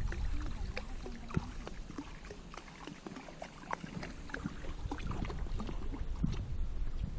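River water splashing and dripping in small irregular ticks as a cast-net fisherman wades and handles his net, over a low rumble.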